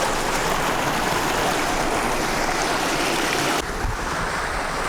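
Steady rush of water tumbling down a small creek cascade. About three and a half seconds in it turns quieter and duller, with more low rumble.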